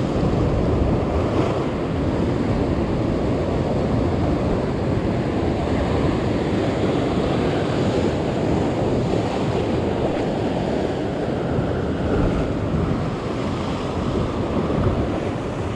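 Sea surf washing on the shore, mixed with steady wind rumbling on the microphone.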